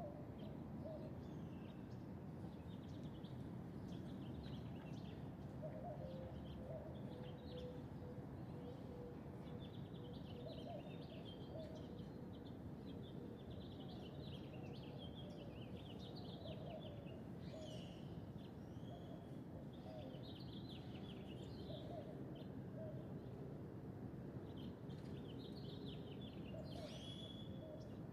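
Wild birds singing at daybreak: many short, high chirps from several birds all through, with short lower calls repeated every few seconds, faint over a steady low background noise.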